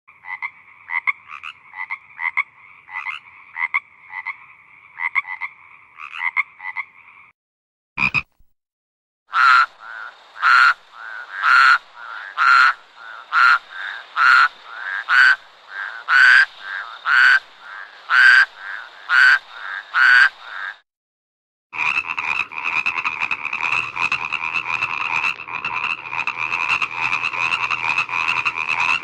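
Frog calling: a long series of short croaks, about one to two a second, growing louder after a break. Later it becomes an unbroken rapid pulsing call.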